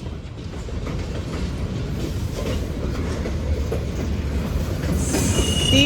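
Freight train's auto rack cars rolling past: a steady low rumble and clatter of steel wheels on the rails, with a brief high squeal near the end.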